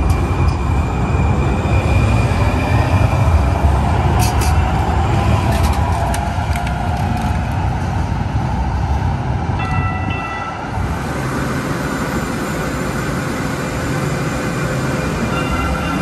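Valley Metro light rail train pulling away from the platform: a steady rumble of the wheels on the rails, with a motor whine that rises as it gains speed. The rumble drops off about ten seconds in, when a short pair of high tones sounds.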